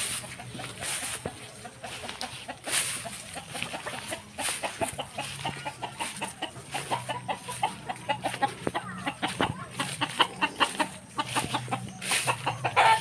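Free-range chickens clucking, with a quick run of short clucks through the middle of the stretch.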